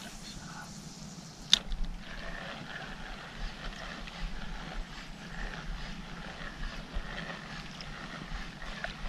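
Daiwa spinning reel being cranked to retrieve a popper lure just after the cast, a faint steady whirr that starts about two seconds in, after one sharp click. Under it, low steady wind and water noise.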